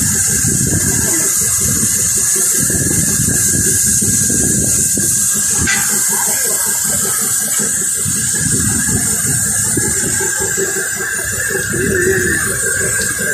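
Steady machinery noise: a constant hiss with a thin high whine over an uneven low rumble, and one brief click about halfway through.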